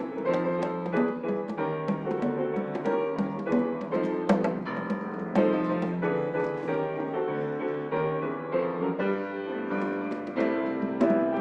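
Solo piano music: chords and a melody of struck notes, played steadily.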